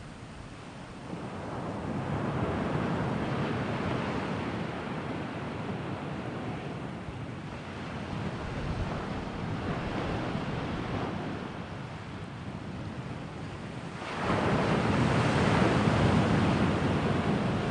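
Sea waves breaking and washing in, coming in surges: a swell about a second in, another around ten seconds, and a louder surge about fourteen seconds in.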